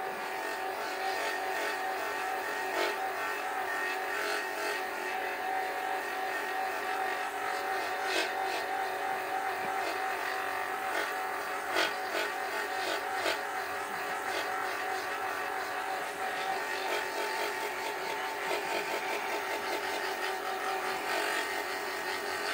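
Lapidary flat lap running steadily, with a water drip onto its spinning abrasive disc. A stone cabochon is pressed flat against the disc, giving a continuous grinding hum with a few light clicks.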